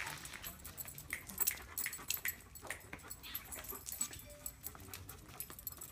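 A dog whimpering in short, high whines, among scattered light clicks and knocks.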